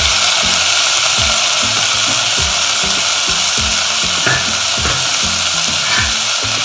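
Chopped tomatoes and onions sizzling in hot oil in a pan, a steady frying hiss. Background music with repeating low notes plays underneath.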